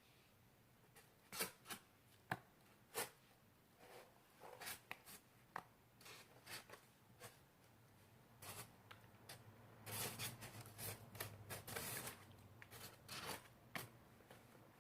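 Slime being drawn in and pressed: scattered sticky pops and crackles, coming thicker for a couple of seconds about two-thirds of the way through.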